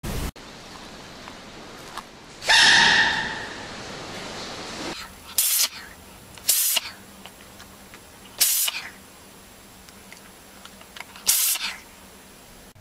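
Small animal sneezes: four short, sharp, high-pitched sneezes one to three seconds apart, after a longer hissing burst of a couple of seconds.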